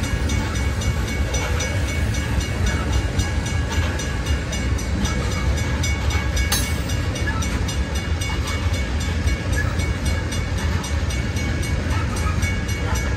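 Loaded coal hopper cars of a freight train rolling past at steady speed: a continuous low rumble with steel wheels on the rails.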